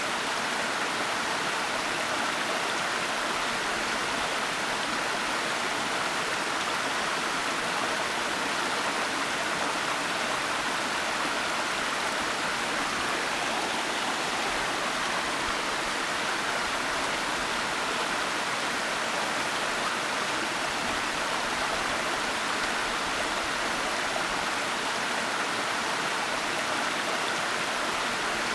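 Waterfall: a steady, unchanging rush of falling water, with no breaks or separate events.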